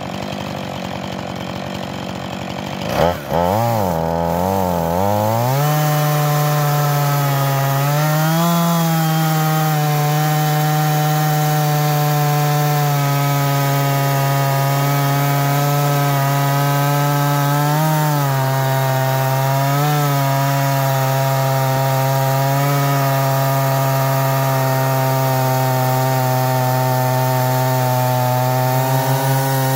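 Small 50cc Husqvarna 445 two-stroke chainsaw with a ripping chain, milling lumber along a log. It runs steadily, gives a knock about three seconds in, then climbs to full throttle and holds a steady high-revving cut, its pitch wavering slightly now and then as the feed pressure changes.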